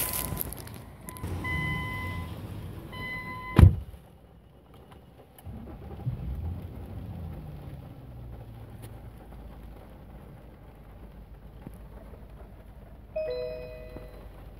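Nissan Fuga's warning chime dinging three times, cut off by a heavy car-door thump about three and a half seconds in. A low engine hum follows in the quieter cabin, and a two-note electronic chime from the dash sounds near the end.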